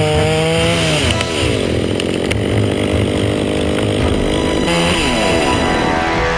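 Two-stroke chainsaw held at high revs, then dropping back toward idle about a second in. A short blip of the throttle rises and falls again near the end.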